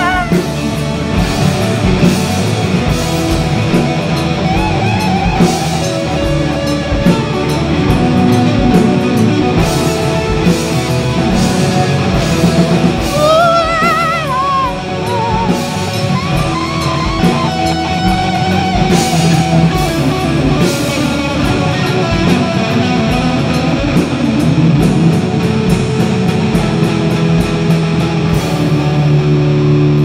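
Live rock band playing, with electric guitars over a drum kit and a wavering, bending lead line about halfway through.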